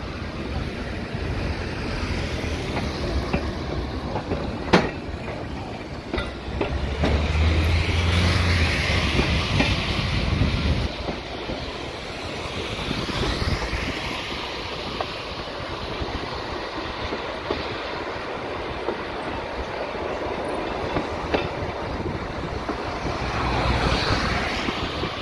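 Interurban tram running along its track, its wheels clicking over rail joints, with one sharp knock about five seconds in and a louder rumble a few seconds later. Tyres of passing cars swell and fade on the wet road alongside.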